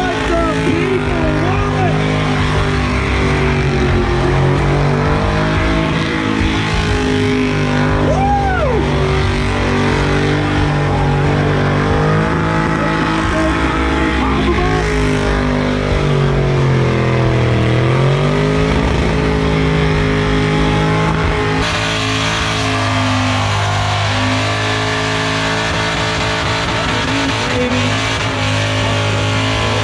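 Car engines running, their pitch dipping and rising again once a little past halfway, with people's voices.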